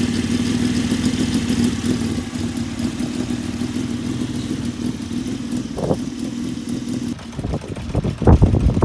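Honda CBX550F air-cooled inline-four engine running steadily after a tappet (valve clearance) adjustment meant to cure an abnormal engine noise. Near the end the steady sound changes and a few loud low thumps follow.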